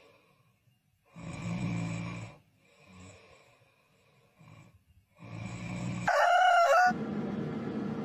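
A person snoring in slow, rasping breaths a few seconds apart, then a rooster crows once, briefly and loudly, about six seconds in. A steady whirring noise follows.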